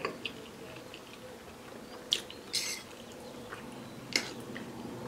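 Metal fork clinking and scraping against a plate of noodles a few times: sharp clinks about two seconds in and again near four seconds, with a short scrape in between, over a steady low hum.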